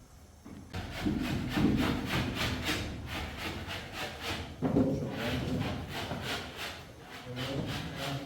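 Hand saw cutting wood in quick, even back-and-forth strokes, about four a second, with a brief pause about halfway through before the strokes resume.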